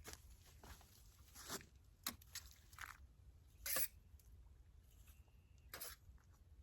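Garden rake smoothing amended soil in a raised bed, heard as several separate faint strokes through the soil.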